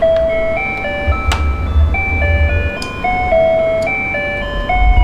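Electronic toy jingle from the garden play set's built-in sound module: a simple beeping tune of clean single notes stepping up and down, like an ice-cream-van chime. A low rumble of handling is heard under it from about a second in and again near the end.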